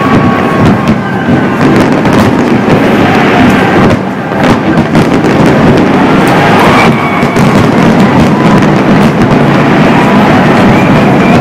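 Aerial fireworks going off in quick succession: a loud, continuous barrage of bangs and crackling, with a short lull about four seconds in.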